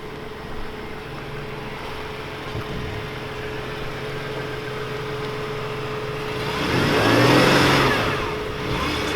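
Ford Transit van's engine idling steadily, with a louder swell of engine or passing-vehicle noise about seven seconds in.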